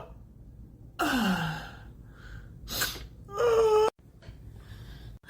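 A person gasping in the build-up to a sneeze. A breathy 'aah' falls in pitch about a second in, a short sharp breathy burst follows near three seconds, then a higher held 'ah' cuts off about four seconds in.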